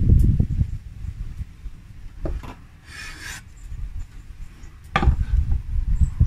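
Large kitchen knife sawing through a crusted cured meat on a bamboo cutting board, the blade rasping against the wood, with a few short knocks of knife and board.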